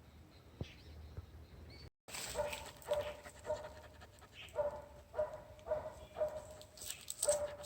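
Beagle puppy sneezing over and over in quick succession, small squeaky sneezes about two a second, starting about two seconds in.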